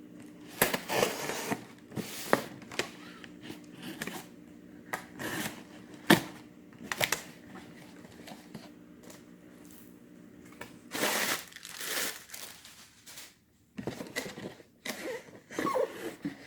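A spinning reel's box and packaging being opened by hand: irregular rustling, crinkling and scraping with sharp clicks and taps. There is one sharp click about six seconds in and a longer, louder rustle about eleven seconds in.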